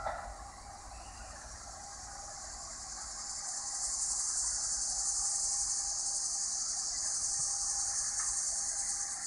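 Insects buzzing: a steady high hiss that swells about three seconds in and then holds.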